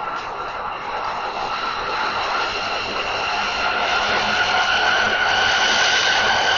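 A vehicle's high-pitched whine, several steady tones over a rumble, growing louder and rising slowly in pitch.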